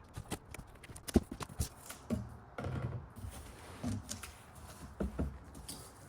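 Cardboard packaging being opened and its contents handled: an irregular series of knocks and taps with short scraping and rustling noises in between.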